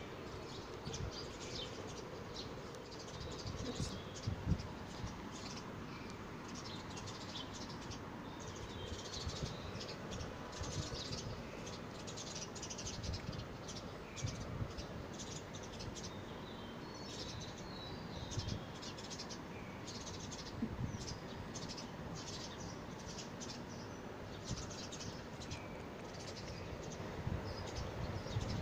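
Small birds chirping in the background: many short, high chirps come and go throughout, with soft low bumps now and then.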